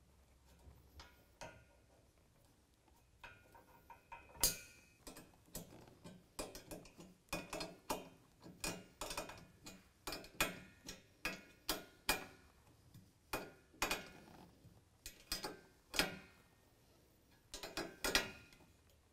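Small hand ratchet clicking in quick uneven runs as bolts on a steel rack bracket are tightened. It is faint and sparse at first, then busy from about four seconds in.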